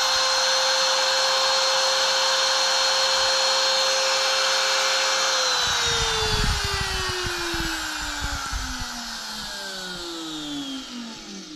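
Wood router motor running steadily, then switched off about five seconds in and winding down, its whine falling in pitch as the bit coasts to a stop. Low bumps come in as it slows.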